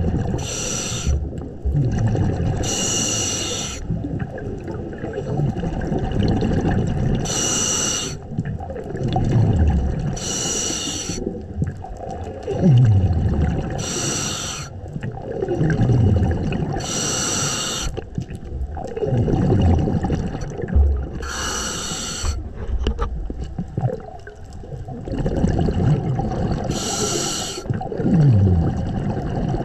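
Scuba diver breathing through a regulator underwater: a short hissing inhale about every three to four seconds, each followed by a falling, bubbling rumble of exhaled air.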